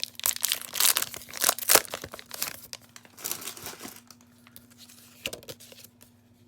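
Foil booster pack wrapper crinkling and tearing open, with dense crackling for about four seconds, then dying down to faint handling of the cards and a single click near the end.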